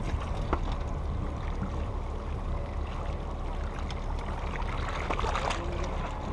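Small waves lapping and gurgling between a boat's hull and a steel seawall, with scattered small clicks over a steady low rumble.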